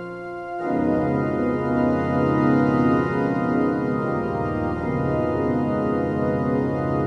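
Church organ playing an improvisation in sustained chords; about half a second in, a louder, fuller chord enters with deeper bass.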